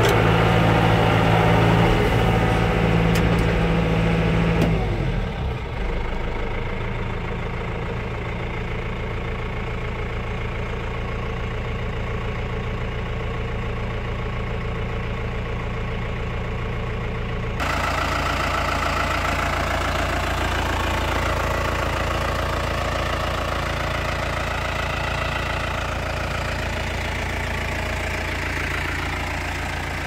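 Yanmar EG83Y tractor's diesel engine running hard under the load of a plough. About five seconds in its pitch falls as it is throttled down to a quieter steady low running; past halfway the sound changes abruptly to the engine running steadily again, heard close by.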